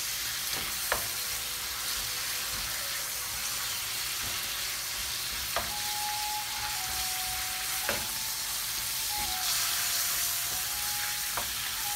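Bacon sizzling steadily as it fries in olive oil in a wok, with a few sharp clicks.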